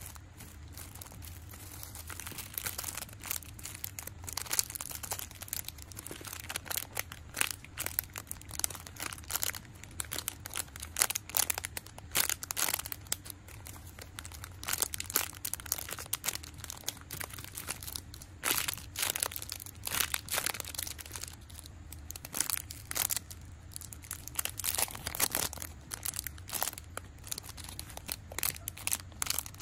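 Thin clear plastic packaging bags crinkling as mini foam squishy toys are handled and squeezed inside them, in irregular crackles.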